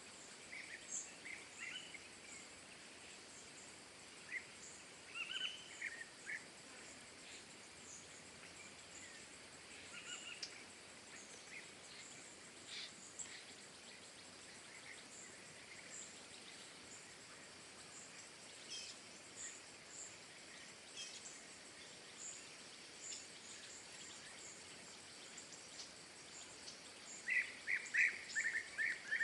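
Small birds chirping and calling now and then over a faint steady hiss of outdoor ambience, with a quick rapid series of chirps near the end.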